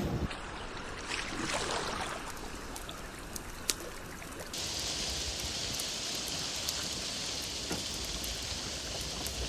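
Rain falling, with scattered drop ticks and water trickling during the first half. About four and a half seconds in, it changes suddenly to a steady, brighter hiss of rain.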